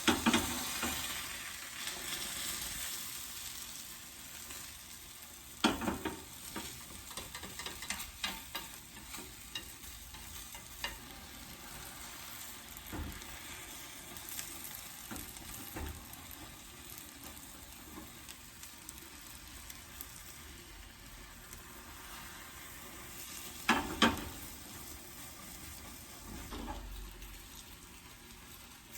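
Food sizzling in a frying pan while being stirred, with scattered knocks and clatter of a utensil against the pan, loudest about six seconds in and again near the end.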